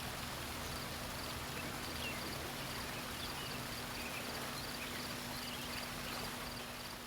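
Faint, steady splash and rush of water from a backyard pondless waterfall, with insects chirping about twice a second and a low steady hum that drops away near the end.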